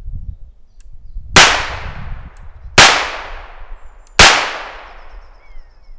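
Three shots from a Nagant M1895 revolver converted to fire 9 mm P.A. rubber-bullet cartridges, fired double-action about a second and a half apart. Each shot is a sharp crack that trails off over about a second.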